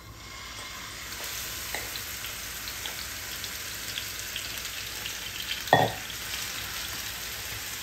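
Grated apple sizzling and crackling as it goes into hot ghee in a non-stick frying pan and is stirred with a spatula. One loud knock against the pan about six seconds in.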